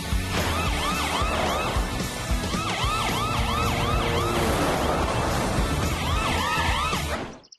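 Cartoon police cruiser siren yelping in short runs of quick rising-and-falling sweeps over background music, as the cruiser's newly repaired emergency system is switched on. It cuts off abruptly near the end.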